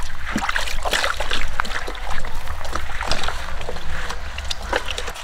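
Wet, irregular knocking and scraping of a knife cutting through a large sailfish, over a steady low rumble.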